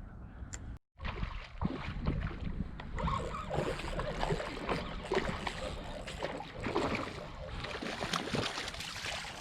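Steady outdoor noise of wind on the microphone, with scattered small clicks and knocks.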